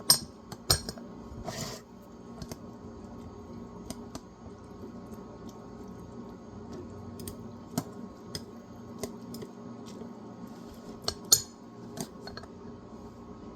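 Scattered clicks and clinks of a bowl, utensils and a soy sauce bottle being handled while extra soy sauce goes onto ramen, loudest right at the start and again about eleven seconds in. A short rush about a second and a half in, over a faint steady low hum.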